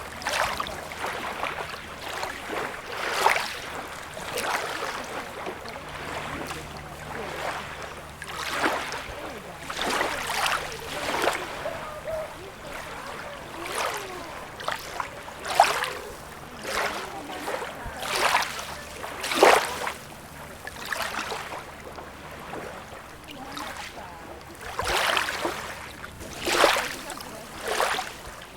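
Small sea waves lapping and splashing at the shore, each short wash following the last every second or two, a few of them louder than the rest.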